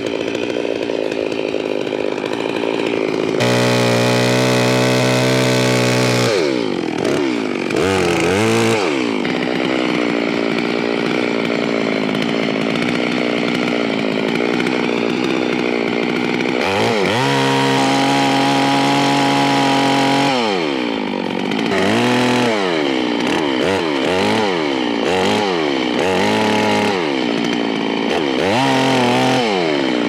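Two-stroke chainsaw cutting through tulip poplar logs. The engine is held at full throttle in two long steady cuts, about 3 to 6 seconds in and again around 17 to 20 seconds. Between and after them it revs up and down repeatedly.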